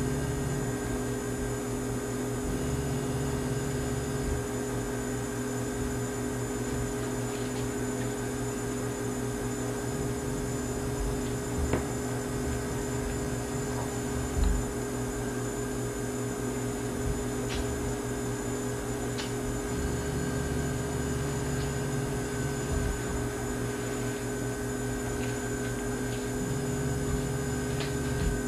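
Steady electrical hum and hiss, with a few faint clicks in the middle.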